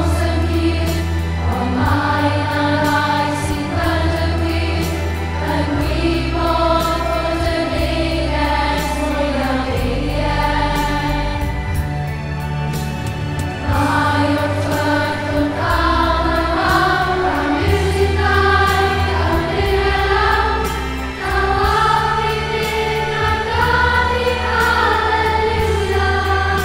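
A large children's and teenagers' choir singing together, with many voices moving through a melody, over an instrumental accompaniment with a deep bass line.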